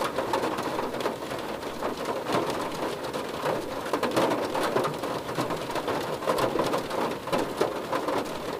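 Rain drumming on a car's roof and windows, heard from inside the car: a dense, steady patter of drops.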